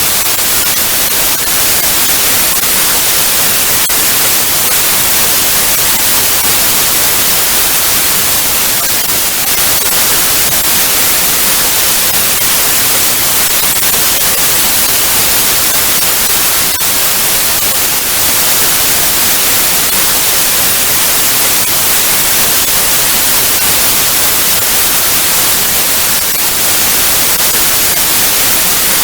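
Analogue TV static: a loud, steady hiss, brightest in the high end, with faint scattered crackles.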